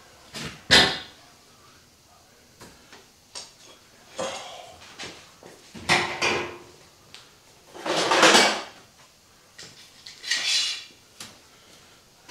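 Metal clanks and scrapes of steel clamps and tools being handled, about five separate knocks a couple of seconds apart, the longest one about two-thirds of the way through.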